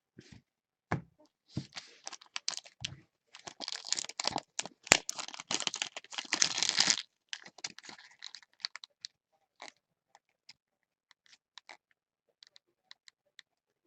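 Plastic trading card pack wrapper being crinkled and torn open, with a dense crackling stretch in the middle, then light scattered clicks as the cards are handled.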